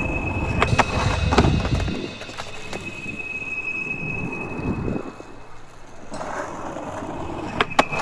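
Skateboard wheels rolling on asphalt, with sharp clacks of the board against the concrete ledge. The rumble and clacks fill the first two seconds, drop away in the middle, and return from about six seconds, with a sharp clack near the end.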